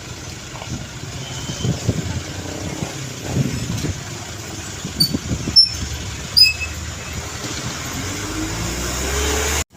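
Roadside traffic noise with a heavy truck's engine rumbling and rising steadily in pitch as it accelerates over the last couple of seconds. A few sharp clicks come in the middle.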